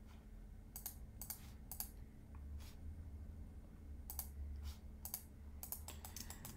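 Faint, scattered clicks of a computer mouse and keyboard, coming quicker near the end, over a steady low hum.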